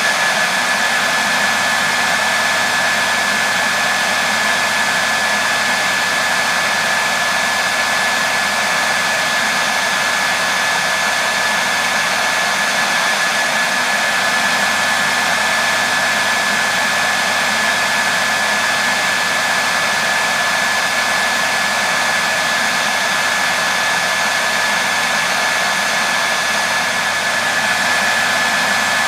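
Hair dryer running steadily: an even rushing hiss with a constant high whine, unchanging throughout.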